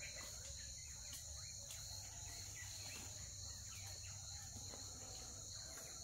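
A steady chorus of insects, a continuous high buzz that does not let up, over a low rumble.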